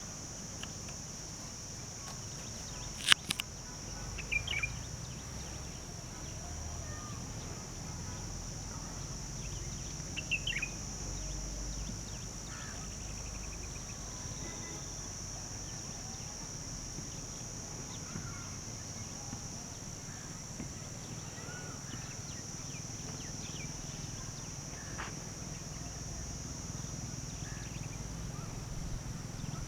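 Birds chirping now and then over a steady high-pitched hum, with the loudest chirps about three seconds in and again around ten seconds.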